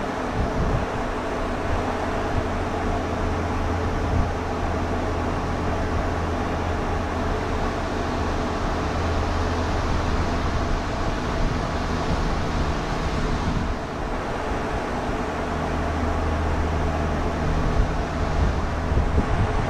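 Steady mechanical hum with an even rushing noise over it, briefly dipping about two-thirds of the way through.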